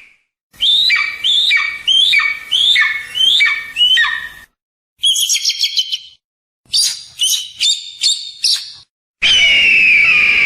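Recorded hawk calls, edited back to back: a run of about six sharp cries that rise then fall, a fast high chatter, another run of about five cries, then a long loud scream starting near the end.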